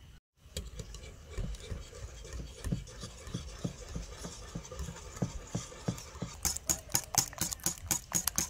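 Wire whisk beating raw eggs in a glass bowl, at first with soft rhythmic strokes about three a second. About six seconds in it speeds up into sharp clicking of the wires against the glass, about five strokes a second.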